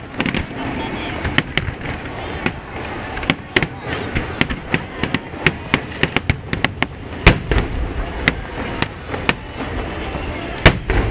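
Fireworks display: aerial shells bursting in a rapid, uneven string of bangs and crackles, with the two loudest booms about seven seconds in and near the end.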